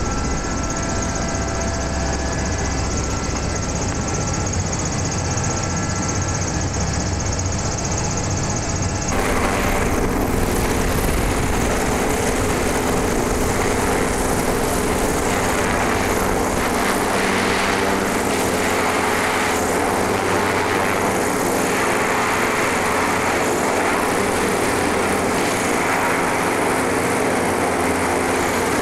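Goodyear airship's propeller engines running steadily. For the first nine seconds they are heard muffled from inside the gondola cabin; then they are heard from outside as a brighter, steady hum with several held tones.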